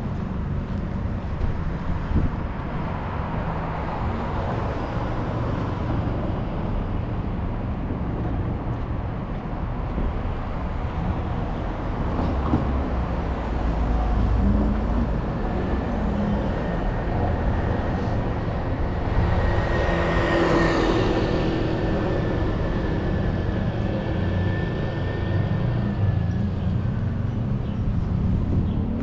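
City street traffic on wet pavement: a steady low rumble of engines, with one vehicle passing close about twenty seconds in, its tyres hissing on the wet road. A faint high whine comes in partway through and fades out before the end.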